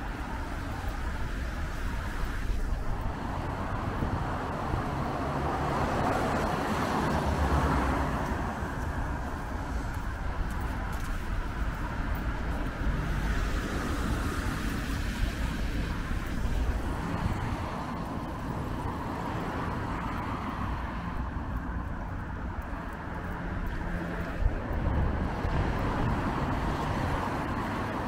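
Road traffic: cars passing on a wet road, their tyre noise swelling and fading as each goes by, over a steady low engine rumble.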